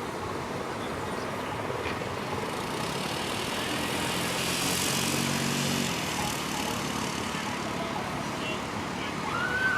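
Steady outdoor noise with a motor vehicle engine passing by, loudest about five seconds in. A brief high chirp-like sound near the end.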